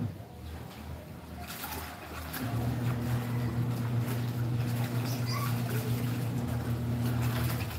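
Laundry being washed by hand in a basin: water sloshing and wet cloth being worked. A steady machine hum starts about two and a half seconds in and stops just before the end.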